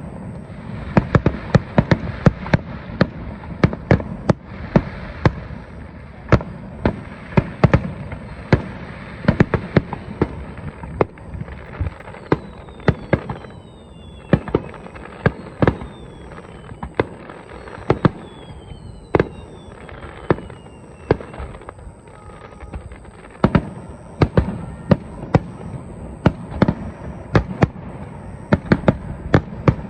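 Aerial fireworks bursting in a rapid barrage, several sharp bangs a second over a continuous low rumble, with a few falling whistling tones around the middle.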